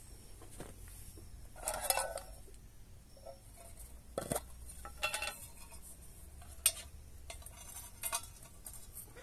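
A small metal char tin being handled and its lid worked open: a few separate metal clinks and scrapes, spread over several seconds.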